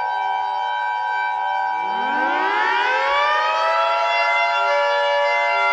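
Civil defense sirens sounding a steady multi-tone wail. About two seconds in, another siren winds up, its pitch rising and then levelling off into the held wail.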